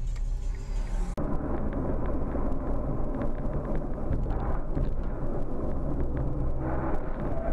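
Steady engine and road noise of a moving car, recorded from inside the car by a dash camera. It starts abruptly about a second in, where the sound of the previous clip cuts off.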